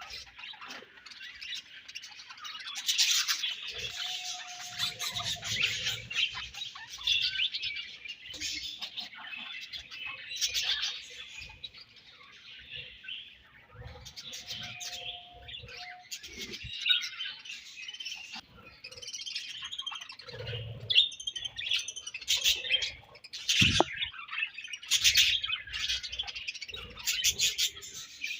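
Budgerigars chirping and warbling, many calls overlapping in a continuous chatter, with bursts of rapid clicks.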